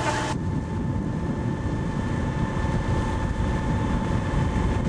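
Wind buffeting the microphone aboard a sailing yacht under way: a steady low rumbling noise. Just after the start, a higher steady hum and hiss cut off abruptly.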